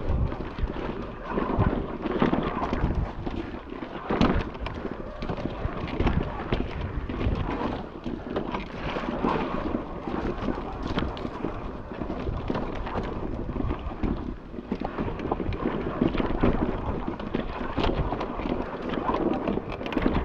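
Wind buffeting the microphone, with frequent knocks and rattles from a Giant electric mountain bike jolting over rocks and ruts.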